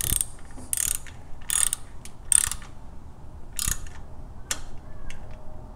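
3/8-inch drive ratchet clicking through short back-strokes, about six strokes a little under a second apart with a pause midway, as it snugs a threaded oil-filter nipple into the engine's aluminium casting.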